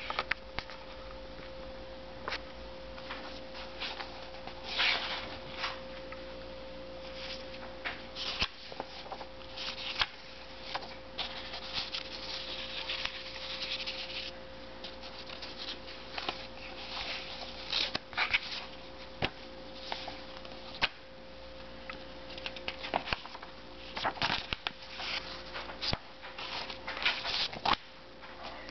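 Paper of old comic books rustling and crackling as they are handled and their pages turned, in short scattered bursts, over a steady electrical hum.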